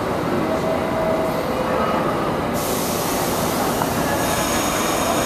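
New York City subway train in a station: a steady rumble with thin squealing tones, and a sudden hiss that comes in about two and a half seconds in and holds.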